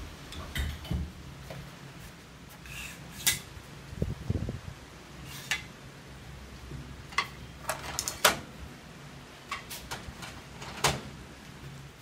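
Metal clacks and clicks as an aluminium laundry pole is handled and the folding wall-mounted pole-holder arms are swung down, about a dozen sharp knocks scattered through, over a steady low hum.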